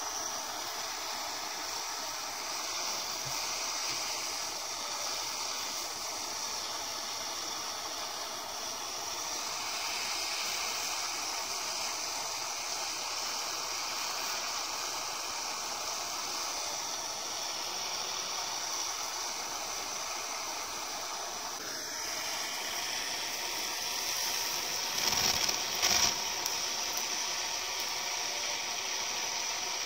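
Gas torch flame hissing steadily as it burns the skin of an apple. Near the end there are a couple of brief louder knocks.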